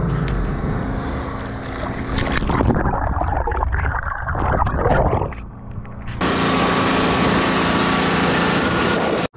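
A boat's motor running under way, with irregular noise through the middle. About six seconds in, a loud, steady hiss cuts in abruptly and stops suddenly just before the end.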